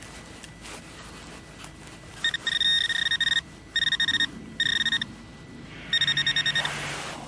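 Metal detector signal: a high electronic beeping in four bursts of rapid pulses over a buried metal target.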